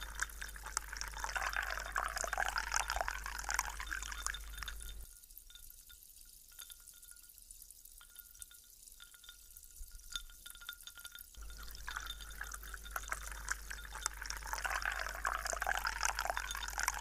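Liquid pouring in a thin stream into a glass of ice, splashing and trickling. The pour drops away about five seconds in, leaving only faint crackling, and returns strongly about six seconds later.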